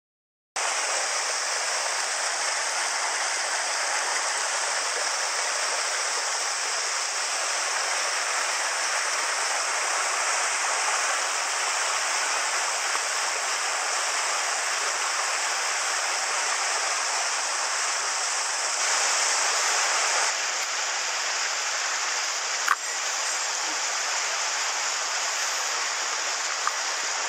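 Mountain headwater stream rushing over boulders and small cascades: a steady rushing that starts a moment in and holds level, with a single sharp click about three-quarters of the way through.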